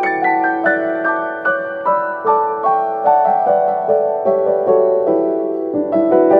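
Background piano music: a gentle melody of single notes, each struck and fading, about two to three a second.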